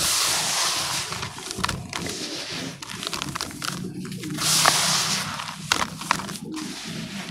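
Hands crumbling and sifting dry, dusty clumps of ash in a plastic tub: continuous gritty crunching and rustling with small crackles, loudest near the start and again around the middle.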